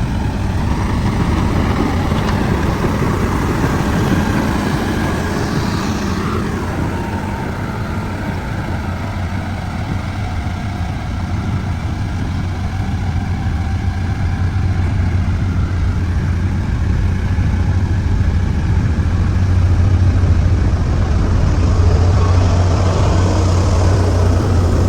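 Heavy road-construction machine engine running steadily with a deep hum, growing a little louder near the end.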